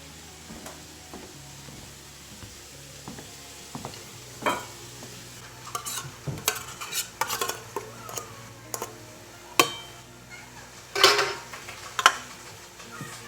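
Irregular clinks, taps and clatters of small hard objects being knocked about, busiest in the middle and loudest about eleven seconds in, over a low steady hum.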